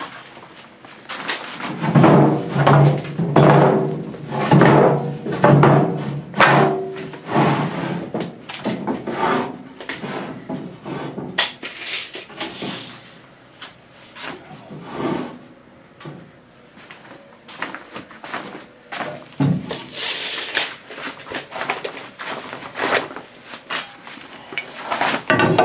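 Wooden 2x4 boards handled on a metal wheelbarrow: repeated knocks, thuds and scraping as they are shifted, laid against each other and marked, with a rough grinding scrape a few seconds in.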